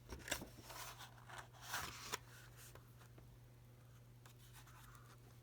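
Pages of a picture book being handled and turned: a few soft paper rustles and clicks in the first two seconds, then quiet with a faint steady electrical hum.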